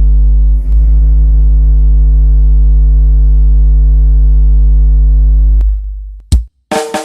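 Miniature sound system speakers playing a very loud, deep, steady bass tone with a stack of overtones, crackling briefly about half a second in. The tone cuts off suddenly near the end, followed by a sharp click and a short burst of another sound.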